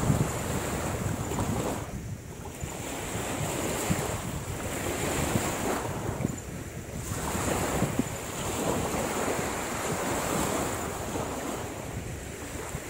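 Wind buffeting the microphone over waves washing on the shore, swelling and easing in slow surges.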